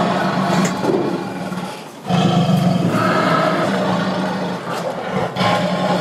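Lion growling in long low rumbles while it feeds on a piece of meat, with a brief break about two seconds in.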